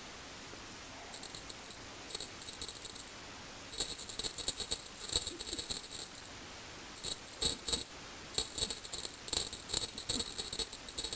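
Small jingle bell jingling in irregular bursts of rapid shakes, with short quiet pauses between them. The bursts come more often in the second half.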